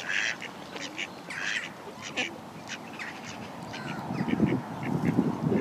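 Birds calling: many short, quick calls one after another. From about four seconds in, wind buffets the microphone with a gusty low rumble.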